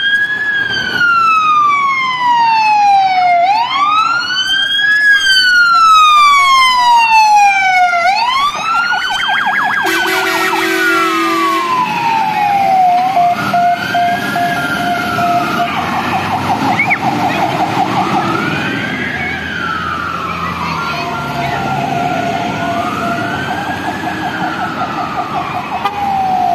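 Fire engine sirens wailing, each sweep rising quickly and falling slowly, about one cycle every four seconds, with a blast of the fire trucks' air horns about ten seconds in. The sirens grow somewhat fainter in the second half as the trucks drive away.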